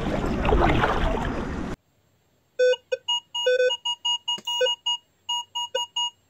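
Less than two seconds of outdoor wind noise, cut off suddenly. Then a short electronic jingle of quick, staccato beeping notes, about three or four a second.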